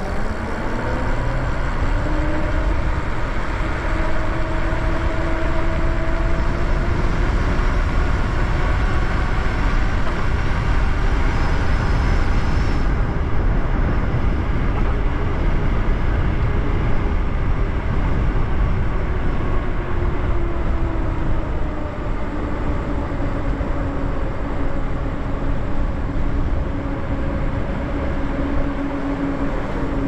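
Lyric Graffiti e-bike's electric motor whining as it rides at speed. The whine climbs in pitch over the first few seconds as the bike accelerates, then holds roughly steady with a slight dip past the middle. Heavy wind rush over the microphone runs underneath.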